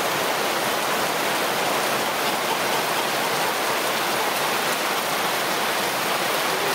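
Heavy rain shower pouring down steadily, heard from under a tent canopy.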